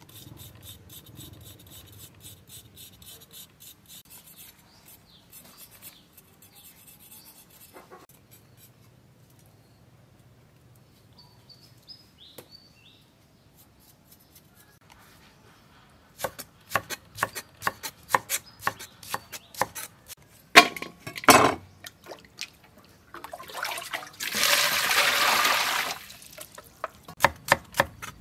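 A knife scraping the skin off a young lotus root in quick short strokes. Later a cleaver chops lotus root on a wooden cutting board in sharp, even strokes, two to three a second, with a couple of seconds of rushing noise between the chopping runs.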